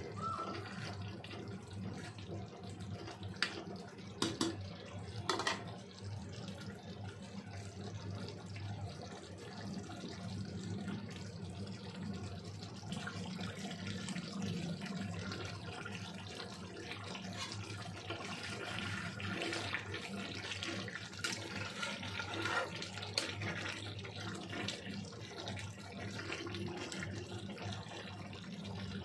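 Steady running-water noise over a low hum, with a few sharp clicks about four to five seconds in.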